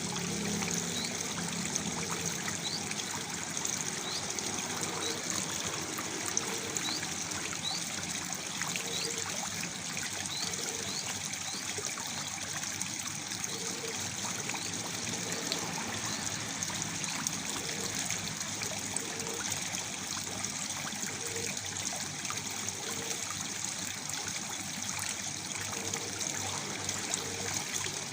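Waterfall: water falling and trickling steadily, an even splashing rush with no breaks.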